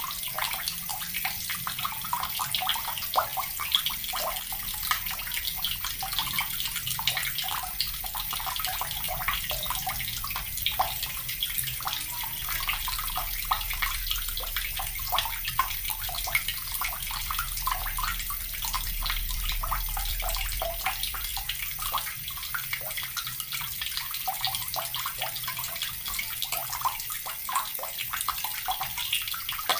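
Water from a tap pouring steadily into a bucket, a continuous dense splashing.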